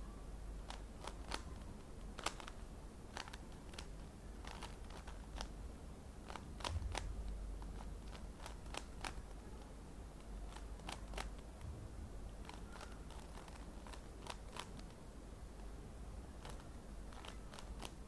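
3x3 Rubik's cube being turned by hand during a solve: irregular sharp plastic clicks as its layers snap round, sometimes several close together, with short pauses between, over a faint low steady hum.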